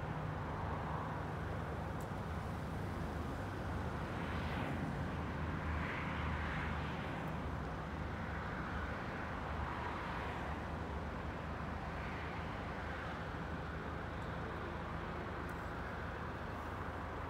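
Road traffic: several vehicles pass one after another, each a rising and falling swell of tyre and engine noise, over a steady low hum.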